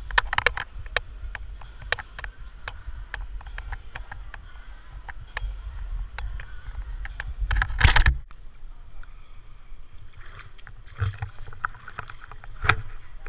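Scuba diver in full gear slipping from the pool edge into the water: scattered clicks, knocks and water sloshing over a low rumble, then a loud splash about eight seconds in that cuts off abruptly, after which the sound turns duller with only occasional splashes.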